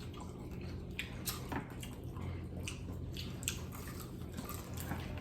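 People chewing food: scattered wet clicks and smacks of eating over a low steady hum.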